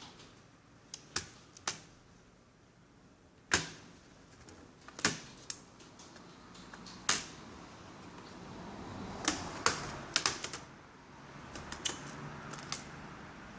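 Irregular sharp clicks and taps of hard plastic and small tools on the netbook's casing as it is taken apart, with a stretch of rustling handling about two-thirds of the way in.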